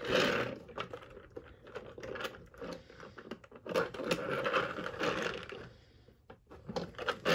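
Hands handling two small die-cast toy cars, picking them up, turning them and setting them down on a hard surface: irregular scraping and rubbing with light clicks and knocks, quieter for a moment near the end.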